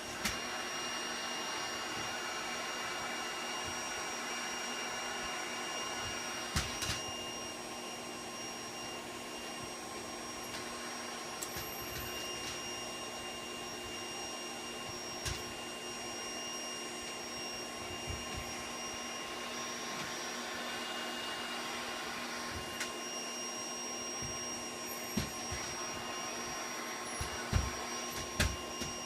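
Vacuum cleaner running steadily with a constant whine. A few short light knocks come through now and then.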